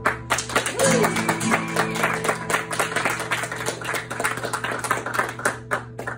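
Acoustic guitar strummed hard and fast in sharp, percussive strokes that start suddenly and stop abruptly at the end.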